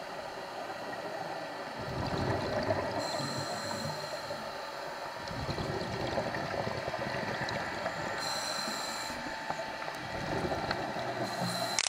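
Scuba diver's regulator breathing heard underwater: bubbling and hissing breaths that come round about every five seconds over a steady water hiss.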